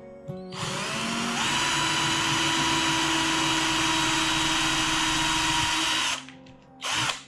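Cordless drill drilling a hole into a machine block. The motor spins up in pitch about half a second in, runs steadily for about five seconds and stops, then gives one short burst near the end.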